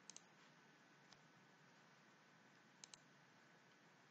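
Near silence with faint computer mouse clicks: a quick pair of clicks at the start and another pair about three seconds in.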